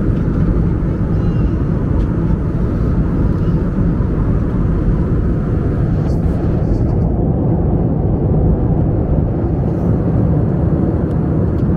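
Steady rushing drone inside an Airbus A320 cabin, from the engines and the air streaming past. A few faint clicks and knocks come from a plastic seatback tray table being unlatched, lowered and folded back up.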